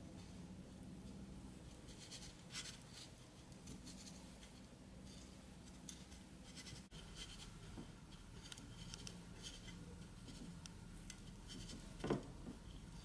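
Faint, scattered scratching and rustling as fingers roll a jelly cube in desiccated coconut flakes against the bowl, with one louder brief scrape near the end.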